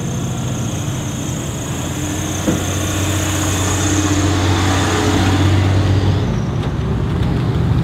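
1999 Ford Ranger driving slowly past, its engine running under load as it pulls a gooseneck trailer carrying a full-size pickup, with tyre and road noise. The engine hum grows a little louder, then drops away about six seconds in as the truck goes by, with a brief knock about two and a half seconds in.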